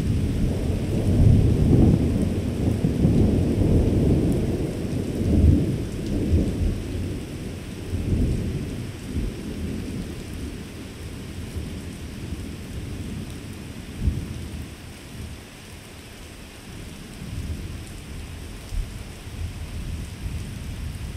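Thunder rumbling low and long, dying away over about fifteen seconds, with a brief sharp thump about two-thirds of the way through and fresh low rumbles near the end. A steady hiss of rain runs underneath.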